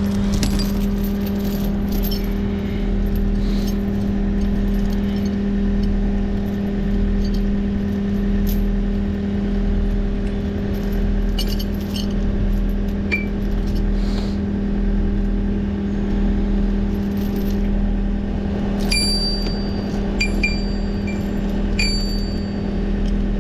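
Skid steer engine running steadily while the machine creeps to work its slipped-off track back on, with scattered metal clinks and scrapes from the track and chain. Three short, high beeps come near the end.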